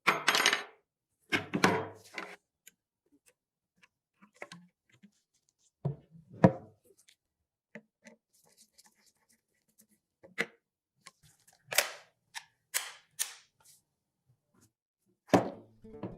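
Metal parts of an old IZH-49 shotgun and tools being handled on a work surface: a run of separate clanks and knocks at irregular intervals, with small clicks between them.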